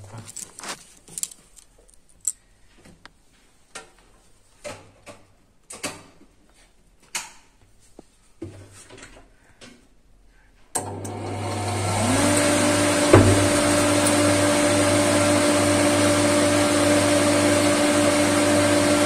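Home electric flour mill (atta chakki) being switched on to test a newly replaced controller card: a few light clicks and taps, then about halfway through the motor starts suddenly. Its pitch rises briefly as it comes up to speed, then it runs steadily with a hum and the whoosh of its cooling fan, showing that the mill now starts.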